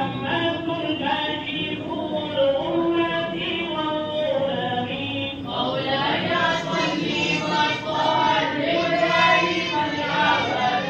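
Devotional chanting by a group of voices singing together in long held notes, turning fuller about halfway through.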